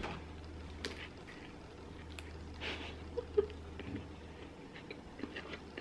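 A person biting into and chewing a lettuce wrap: faint crunches and small clicks, quiet, over a low steady hum.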